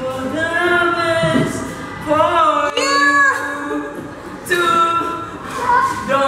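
A young man singing unaccompanied in a strained, high voice, holding long drawn-out notes with short breaks between phrases.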